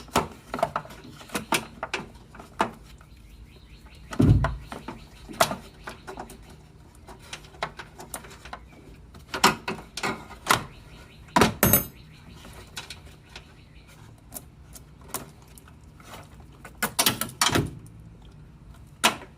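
Irregular metallic clinks, taps and knocks of a bolt, washer and hand tools being handled while a battery ground cable's end is fitted, with a few louder knocks scattered through.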